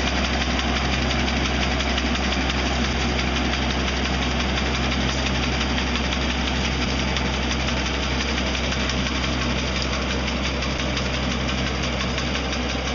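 Tractor engine running steadily while driving a hydraulic BRM brush trimmer, its cutter head working through brambles and scrub, with a constant high whine over the engine.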